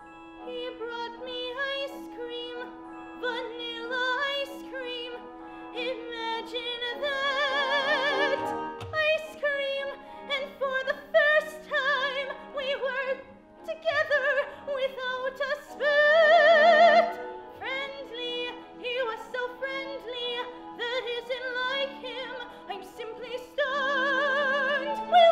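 Operatic soprano singing by a young woman, holding several long high notes with wide vibrato, over a held instrumental accompaniment.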